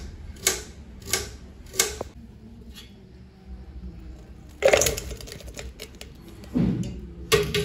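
A knife chopping through an onion on a cutting board, one sharp stroke about every half second for the first two seconds. After that come a few louder knocks of steel kitchenware: a steel strainer and bowl handled as the sliced onion is moved into the bowl.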